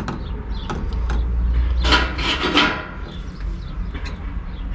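Hands handling nylon fishing line and a small scissors while a freshly tied knot is trimmed. About two seconds in there is a rubbing rustle, and a few small clicks come before and after it, over a steady low rumble.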